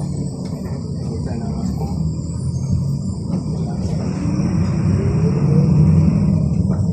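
City bus engine running under way, heard from inside the cabin as a steady low rumble; about four seconds in its pitch rises and it grows louder as the bus speeds up.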